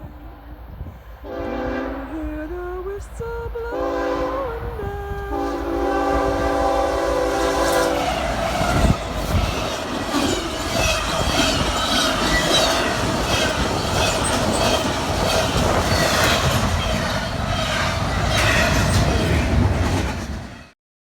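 Train whistle blowing in several long, multi-note blasts, one of them bending in pitch, then the train passing with its wheels clacking over the rail joints. The sound cuts off suddenly near the end.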